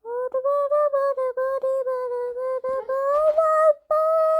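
A child's voice holding one long sung note, pulsing with quick regular breaks about four times a second, rising a little in pitch after about three seconds and breaking off briefly near the end.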